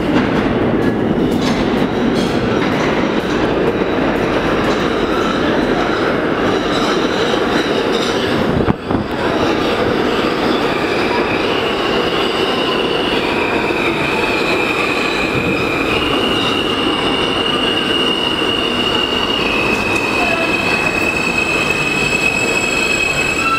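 Kawasaki R160 subway train arriving at an underground station, a steady loud rumble of wheels on rail as it runs in alongside the platform. In the second half, high whining tones step up and down between several pitches as it slows.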